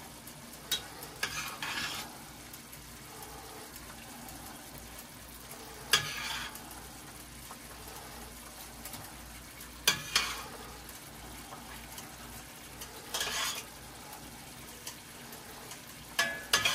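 Metal kitchen tongs clacking against the stockpot and frying pan as cooked spaghetti is lifted and dropped into the pan, about six short clatters spread out, over a low steady sizzle from the pan of pasta and broccoli.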